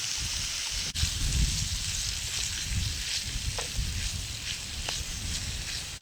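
Sausage, potato, mushroom and pepper frying in a pan over a wood-fired Forfar stove: a steady sizzle with a few faint crackles. A low, uneven rumble of wind on the microphone lies underneath.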